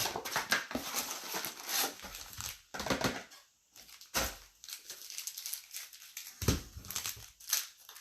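Wrappers of trading-card packs crinkling and rustling as the packs are torn open and handled, in irregular bursts with a brief pause midway.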